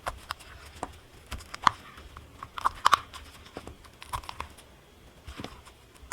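Cured resin pieces being pushed and peeled out of flexible silicone molds: irregular sharp clicks and crackling, tearing snaps as the silicone lets go.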